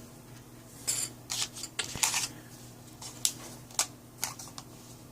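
Irregular sharp clicks and crackles, about a dozen over three seconds, from small parts and packaging being handled on a work surface during an iPhone 6s repair.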